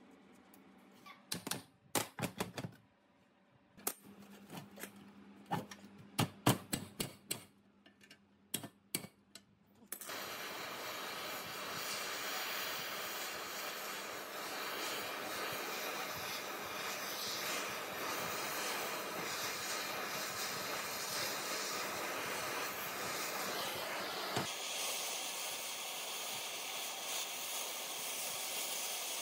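A run of sharp clicks and knocks, then a steady hiss that starts about a third of the way in and carries on, changing character slightly near the end.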